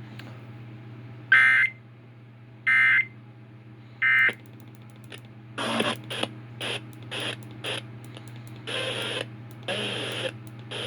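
Emergency Alert System end-of-message data tones from a weather radio: three short, identical warbling digital bursts about 1.4 s apart. After them comes an irregular run of short noisy bursts over a steady low hum.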